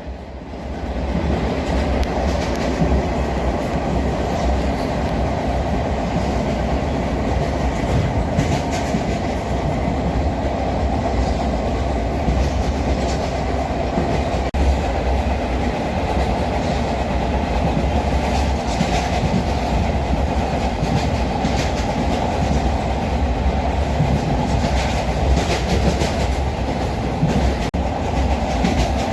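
Moving train heard from on board: a steady rumble of wheels on the track, with scattered clicks and knocks from the rails. It fades in over the first second.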